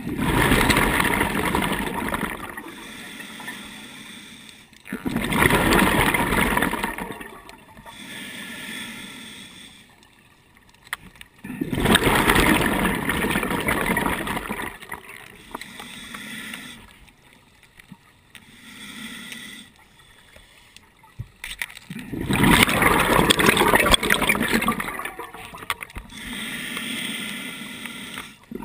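Scuba diver's breathing through a regulator, heard underwater: four loud rushes of exhaled bubbles, each two to three seconds long, with quieter hissing breaths between.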